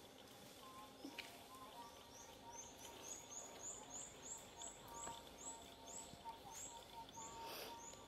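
Faint outdoor ambience with a bird repeating a short, high chirp about three times a second, starting about two seconds in and running for several seconds.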